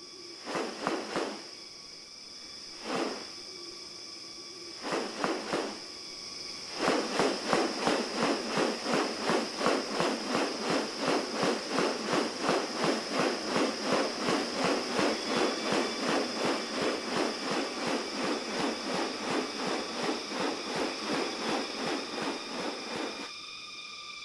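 Rainforest ambience: a steady high insect drone, with a few short rasping calls in the first few seconds, then a long, even run of sharp rasping pulses about three a second that stops shortly before the end.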